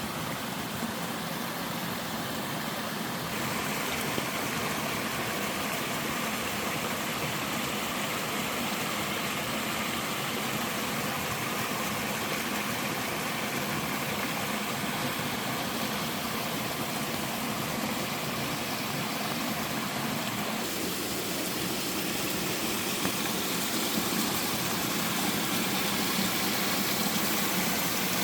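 Water of a five-tiered sliding waterfall in a mountain stream, rushing steadily over the rock, its tone shifting slightly twice.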